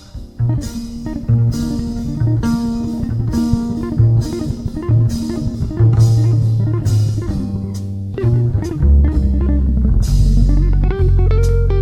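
Band music: guitar over bass guitar and drums.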